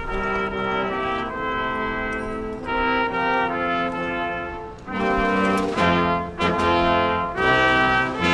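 Background music: held brass-like chords that change about once a second, turning to shorter notes in the last few seconds.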